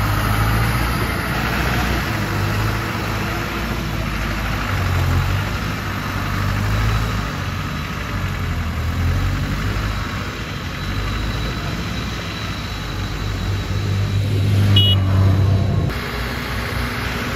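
Diesel engine of a loaded DFAC dump truck running steadily as it moves slowly over soft, muddy ground. For about two seconds near the end the engine works louder as the tipper bed starts to lift to dump the soil.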